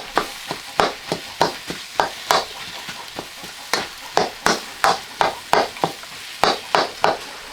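A spoon scraping and stirring in a pan of frying curry, about three strokes a second over a steady sizzle. The stirring stops near the end.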